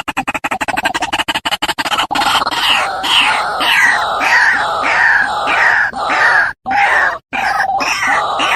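White-breasted waterhen (ruak-ruak) calling. It starts with a fast run of short notes, about a dozen a second. From about two seconds in it switches to the loud, repeated 'ruak-ruak' phrase, roughly two to three notes a second, broken by short pauses near the end.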